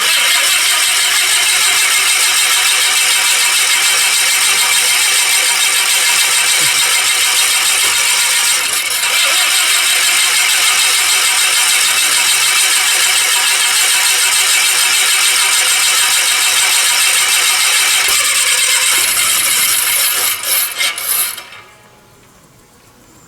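Aircraft engine start attempt: loud, steady engine noise for about nineteen seconds, then sputtering unevenly and cutting out about twenty-one seconds in.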